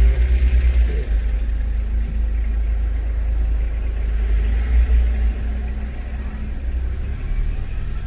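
Low rumble of a car's engine and tyres heard from inside the cabin while it is driven slowly, easing off slightly a little past halfway.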